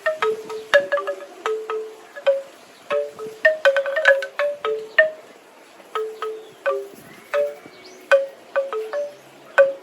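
Bamboo wind chimes clacking together in a gentle breeze: irregular hollow knocks, a few a second, each ringing briefly, over a faint rustle of wind.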